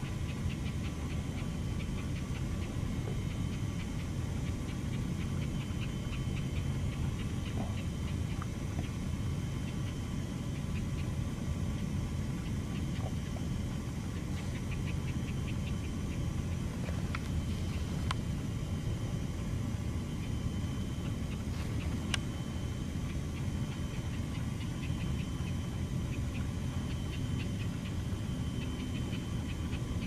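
Swamp ambience: a steady low rumble with faint, rapid high ticking that comes and goes in runs, and a few sharp clicks.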